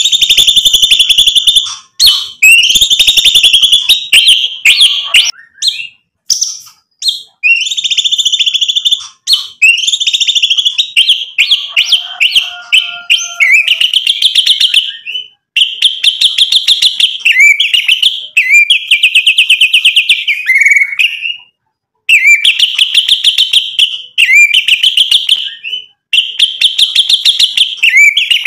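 White-rumped shama (murai batu) singing loudly: phrases of rapid-fire, rattling whistled notes, each lasting a second or two, with short pauses between them.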